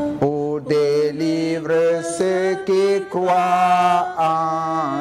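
A man singing a slow French gospel chorus solo, in a string of long held notes that step up and down in pitch with short breaths between them.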